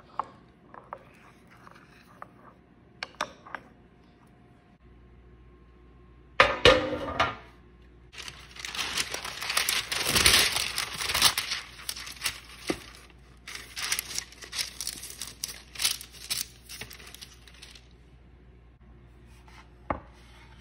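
A few light spoon clicks against a bowl while flour-and-water paste is stirred, then a short clatter. About ten seconds of loud paper crinkling and tearing follow as a sheet is spread over a metal baking tray, and a single knock comes near the end.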